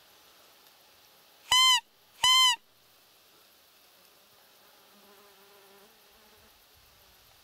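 Roe deer call blown twice, two short loud squeaky notes that rise and fall in pitch, about two-thirds of a second apart, imitating a roe deer to lure a buck. Under it a faint steady buzz of insects.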